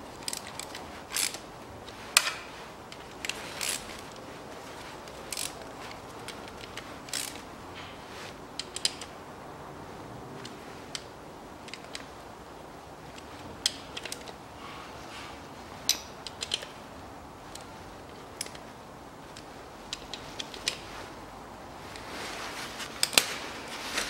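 Scattered sharp metallic clicks and light taps, some in short runs, from a hand wrench working the bolts as the clutch release bearing guide sleeve is fitted into the bellhousing of a Chevrolet Lanos five-speed manual gearbox.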